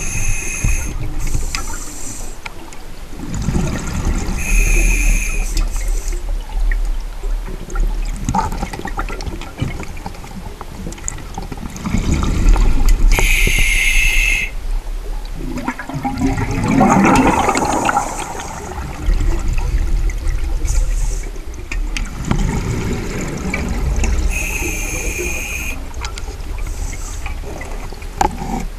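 Scuba diver breathing underwater through a regulator: a few bursts of exhaled bubbles several seconds apart, over a steady low rushing of water.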